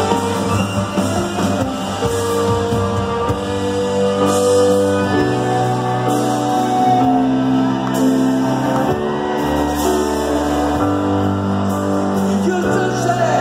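Live rock band playing in a large arena hall, with singing over long held chords and bass notes that change every few seconds.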